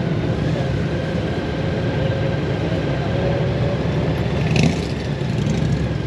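Motorcycle engine running steadily at a slow crawl, heard from on board the bike, a low rumble with a few held tones. A short burst of hiss comes about four and a half seconds in.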